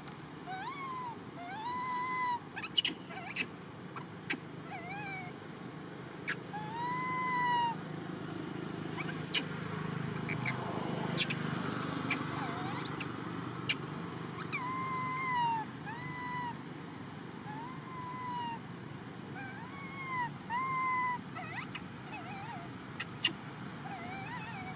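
Infant long-tailed macaque crying: repeated high, arching coo calls, each about half a second long, coming in runs and pausing for several seconds in the middle, the distress cries of a baby monkey. A few sharp clicks stand out, and a low rumble swells and fades in the middle.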